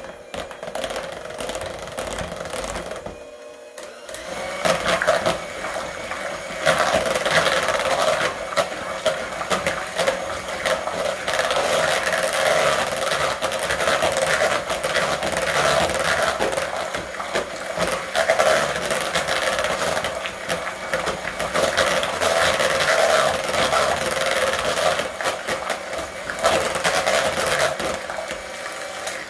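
Electric hand mixer running, its beaters churning through a thick pudding mixture in a bowl. The motor drops away briefly about three seconds in, then runs on louder and steadily, cutting off at the end.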